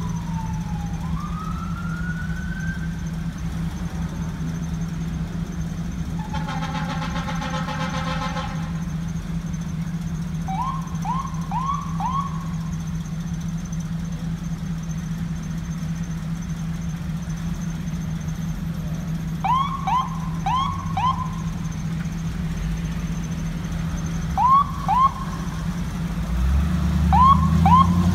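Fire truck responding with its electronic siren: a slow wail sweeping down and back up, then a long horn blast of over two seconds, then short groups of quick rising siren chirps. The truck's engine grows louder near the end as it comes close.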